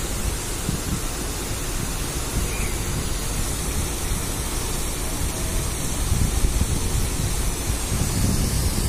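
Steady rushing outdoor noise with a rough, buffeting rumble: wind on the phone's microphone over road traffic and a cascading fountain below. It grows a little louder about six seconds in.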